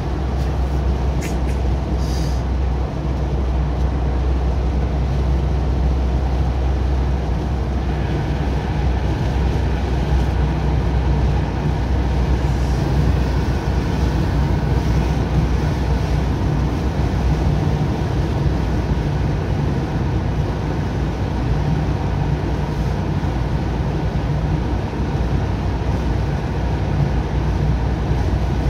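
Steady tyre and engine noise heard inside a car cruising at speed on a dual carriageway, a continuous low rumble with road roar over it. A couple of brief faint ticks come between one and two seconds in.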